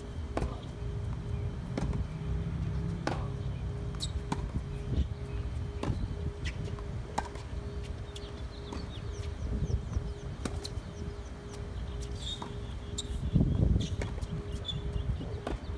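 Tennis rally on an outdoor hard court: rackets striking the ball and the ball bouncing, a string of sharp, irregularly spaced pops roughly once a second.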